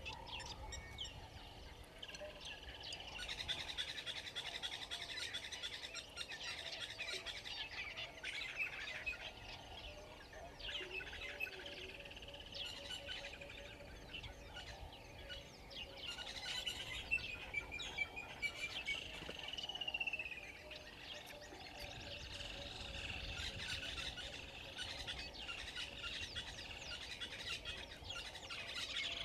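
A chorus of many wild birds calling and singing at once, with one clear downward-sliding whistle a little past the middle.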